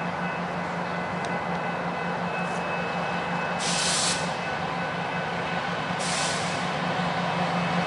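Diesel freight locomotives approaching at low speed, their engines giving a steady hum. Two short bursts of air hiss come about four and six seconds in.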